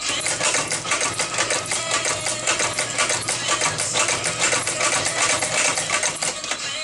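Shoe sewing machine running at speed, stitching fabric onto a sneaker: a fast, even run of needle clicks over a steady motor hum.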